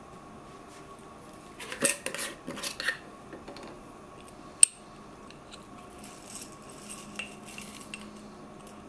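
Clinks and clatter of a glass jar being handled and opened, with one sharp click about halfway through, then a metal spoon scraping and rattling as it scoops coffee beans from the jar.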